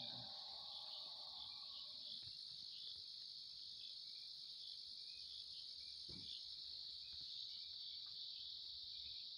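Crickets singing in a steady, high-pitched night chorus, with a single soft knock about six seconds in.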